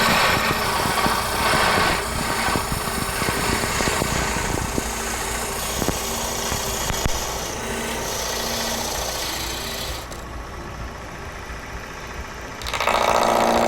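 Wood lathe turning a lignum vitae bowl blank, a turning gouge cutting into the spinning base with a dense scraping, chattering noise over a faint steady motor hum. The cut eases off about ten seconds in, then bites in hard again near the end.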